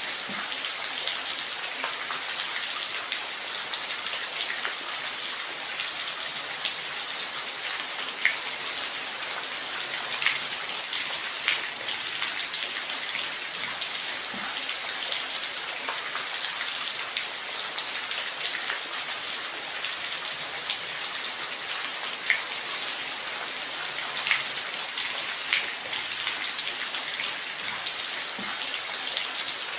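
Steady rain falling, an even hiss, with a louder single drop ticking now and then.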